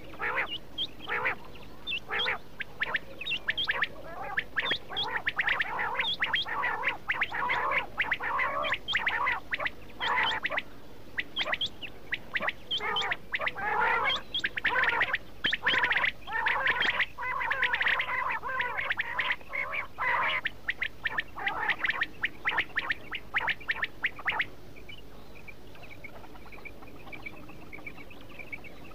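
Quail calling: a quick, dense run of short, rough calls, many overlapping, that stops about 24 seconds in, leaving only a faint, thin high note.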